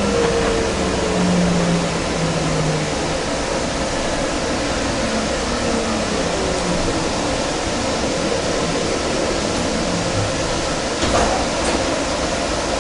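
Inside a Kinkisharyo light rail car under way: the traction motor whine falls in pitch and fades over the first few seconds as the car slows. It leaves a steady rumble and hiss from the moving car, with a single sharp clack about 11 seconds in.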